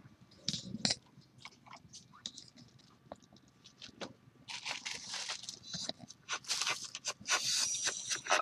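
Close rustling and crunching handling noise on the microphone as the recording phone is moved about, with a couple of sharp clicks about half a second in and denser, louder crackle in the second half.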